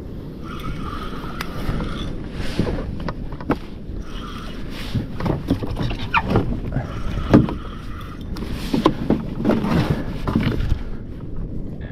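A spinning reel cranked in short bursts against a hooked fish, its gears giving a whirring hum, with water slapping and splashing against a sit-on kayak hull in between.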